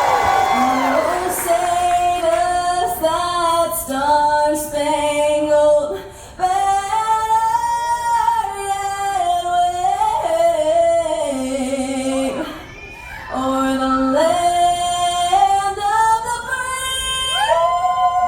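A woman singing a melody in held notes that step up and down, breaking off briefly twice, about six and about twelve seconds in.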